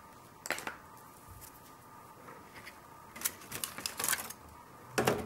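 A paintbrush tapping and scraping in a foil-lined plastic palette box while picking up acrylic paint: a handful of short, sharp clicks, the loudest near the end.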